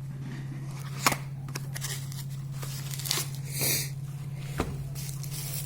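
Packaging being opened by hand: a few light clicks and a short crinkling, tearing rustle about three and a half seconds in, over a steady low electrical hum.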